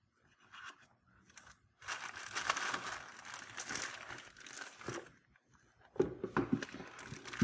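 Clear plastic bag around a rifle scope crinkling as the bagged scope is handled and lifted out of its box, in two stretches: from about two seconds in, then again after a short pause near the end.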